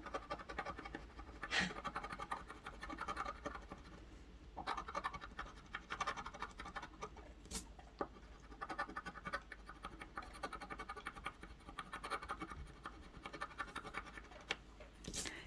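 Scratch-off lottery ticket being scratched: quick repeated scraping strokes of a coin or fingernail over the latex coating, with a few sharper clicks.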